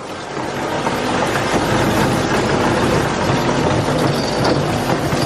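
Golf cart driving through dry corn: a steady, dense rustling and crackling of stalks and leaves scraping against the cart and crunching under the wheels.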